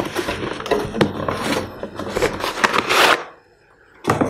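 Cardboard box being opened and a metal-cased amplifier pulled out of it: rustling and scraping of the cardboard flaps and packing with many small clicks, building to a loud scrape near three seconds. After a short pause there is a single sharp knock.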